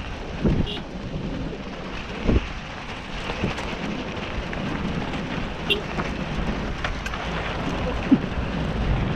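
Steady wind rush on the microphone with a few short, low thumps, typical of riding a rough trail.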